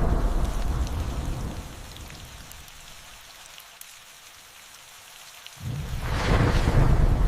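Thunderstorm: steady rain with a rolling thunder rumble that fades away over the first two seconds, leaving the rain hiss with scattered drop ticks. A second thunderclap breaks in suddenly about three-quarters of the way through and rumbles on to the end.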